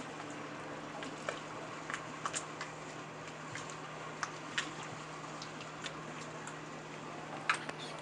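Small waves lapping against the dock and ramp, giving scattered light, irregular clicks over a faint steady low hum.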